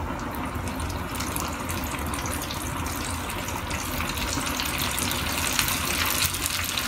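Flour-coated chicken drumsticks deep-frying in a pan of hot oil: a steady sizzle full of fine crackles, getting a little louder about four seconds in.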